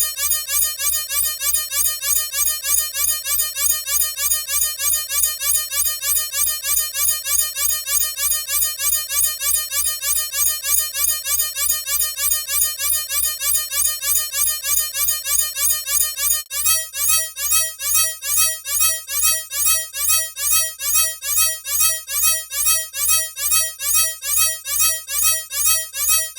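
Electronic alarm sounding a fast, steady run of short rising chirps, several a second, with a buzzy tone. Past the middle the pattern shifts to a brighter, slightly slower chirp.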